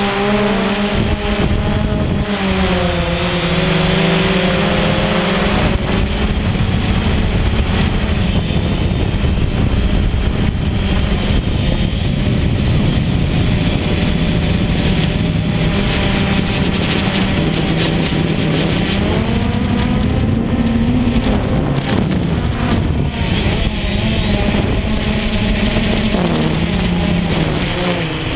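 DJI Phantom quadcopter's motors and propellers droning up close, over a rush of air. The pitch shifts down and up several times as the motor speeds change in flight.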